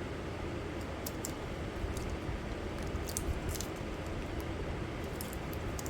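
Small plastic and metal items being handled, giving faint scattered clicks and light rattles over a steady low background hum.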